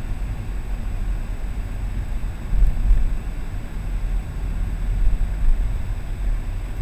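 Low, steady rumble of a car's engine and tyres on the road heard from a dashcam inside the cabin, swelling briefly a couple of times.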